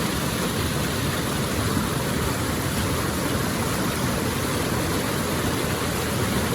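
Steady rush of water over the Popa Falls rapids on the Okavango River, an even unbroken noise.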